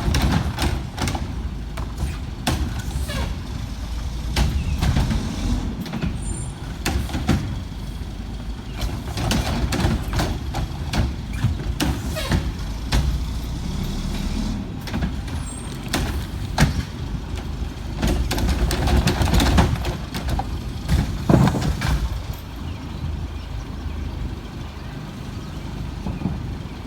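Old Heil garbage truck running with a steady low rumble, with sharp knocks and clanks scattered through it.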